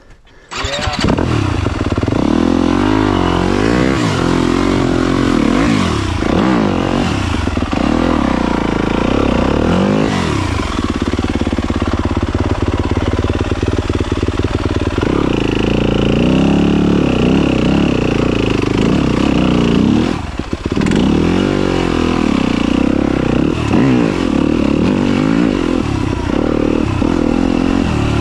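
Yamaha YZ250FX dirt bike's single-cylinder four-stroke engine revving up and down with repeated throttle changes while riding a trail. The level drops briefly about twenty seconds in, when the engine comes off the throttle, then picks up again.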